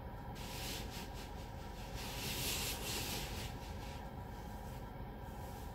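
Sonny's car wash tunnel equipment working on the car, heard from inside the cabin: a steady low rumble, with a hiss of the wash over the body that starts a moment in, is loudest around the middle and fades about four seconds in.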